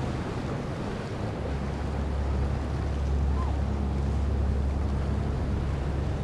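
A motorboat's engine runs steadily at speed, a low drone under the rush of spray and churned water from the hull, with wind noise on the microphone. The sound swells slightly in the middle as the boat passes.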